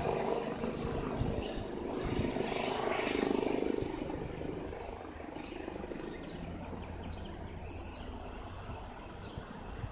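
Eurocopter EC135 twin-engine helicopter flying away after takeoff, its rotor and turbine noise receding and growing quieter after about four seconds.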